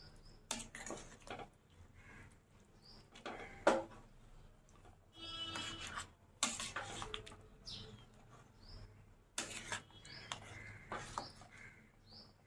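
A flat metal spatula scraping and clinking against a metal cooking pan as a thick chicken curry is stirred, in irregular strokes with one sharper knock a little before the middle.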